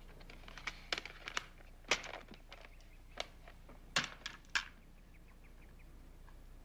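Plastic audio cassettes and their cases clicking and clattering as they are picked up, handled and set down, a quick run of sharp clicks that stops after about five seconds.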